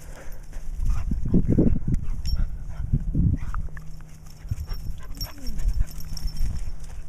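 A German Shepherd puppy and a Miniature Pinscher play-fighting: low dog sounds in rough bursts, heaviest in the first few seconds, with paws scuffling.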